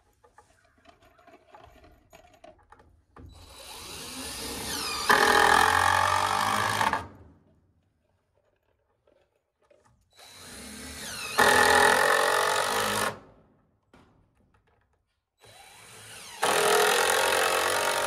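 Cordless drill driving three screws into wooden framing, one after another. Each run spins up, gets louder partway through as the screw bites into the wood, and stops abruptly.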